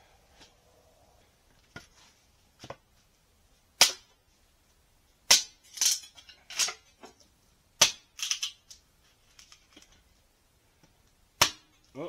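Sharp cracks and knocks of kindling wood being snapped and handled while a fire is laid. There are about ten separate snaps at irregular spacing, a few of them loud.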